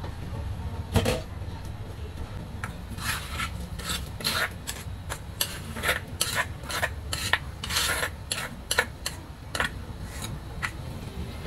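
Silicone spatula scraping ground spice paste out of a stone mortar (cobek) into a pot, a long run of short, uneven scraping strokes. A single knock about a second in.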